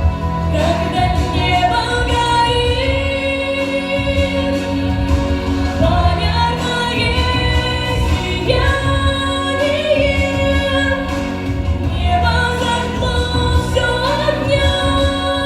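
Song with a female voice singing over a steady instrumental accompaniment.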